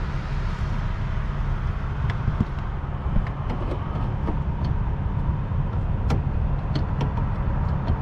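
A steady low engine rumble, with scattered light clicks and taps of a plastic HVAC actuator being slid into its mount.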